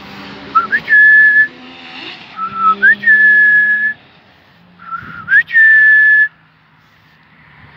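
A person whistling three times to call a dog, each whistle a short lower note that slides up into a held higher note.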